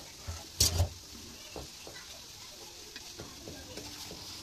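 Spatula scraping and knocking against a metal kadai as chunks of young jackfruit are stirred, the sharpest scrape a little over half a second in, over a faint steady sizzle of frying.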